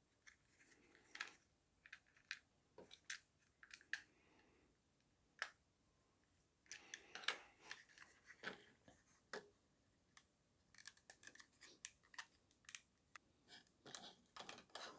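Faint scattered clicks and taps of hard plastic parts being handled and fitted together by hand: the clear feed tube and housing of a Splat-R-Ball gel blaster drum magazine. The clicks are sparse at first, bunch together about halfway through, and come thickly again near the end.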